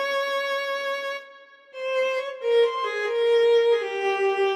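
Korg Pa700 arranger keyboard playing a violin voice: a slow melody of long held notes, one at a time, with a short gap a little over a second in.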